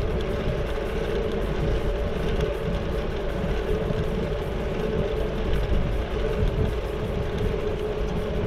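Steady wind rush and rolling noise of a bicycle ridden along a paved path, picked up by a GoPro mounted on the bike. A steady hum runs through it throughout.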